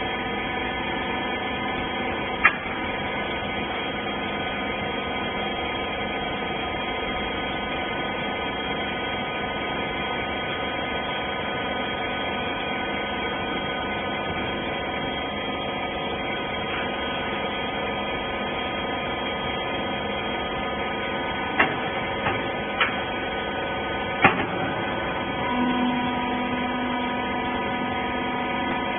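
Hydraulic rag baler's electric motor and hydraulic pump running with a steady hum. A sharp click comes a couple of seconds in, and three more come in close succession near the end, after which a further tone joins the hum.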